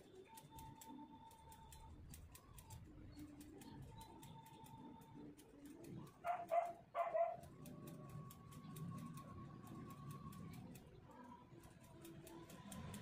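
Scissors snipping hair in quick, irregular clicks, over faint bird calls in the background. Two short, louder calls cut in about six to seven seconds in.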